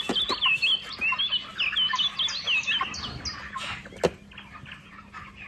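A flock of month-old broiler chickens peeping: many short, high chirps overlapping, most sliding down in pitch. There is one sharp tap about four seconds in.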